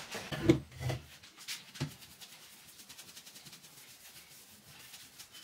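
A few knocks and thumps as a wooden chair is handled in the first second, the loudest just after the start. Then a cloth rubs the chair's wooden frame in quick back-and-forth strokes, several a second.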